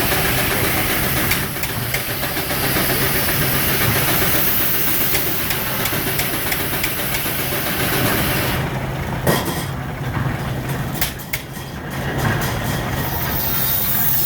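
Case steam engine running a sawmill, with a steady low hum under a loud hiss. About two-thirds of the way through the hiss stops, leaving the hum with scattered sharp clicks and one louder knock.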